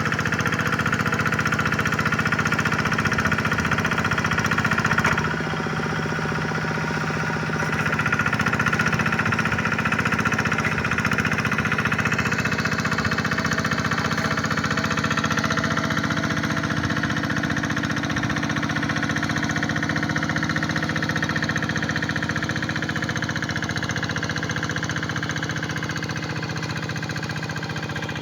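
Hand tractor's single-cylinder diesel engine running steadily while pulling a plough. Its loudness drops briefly about five seconds in and comes back a few seconds later.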